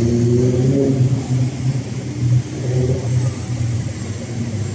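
Road traffic: vehicle engines running and accelerating, a steady low rumble.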